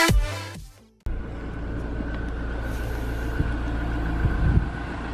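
Electronic intro music fades out in the first second. After a brief gap, a car engine idles steadily: a low rumble with a faint steady high tone above it.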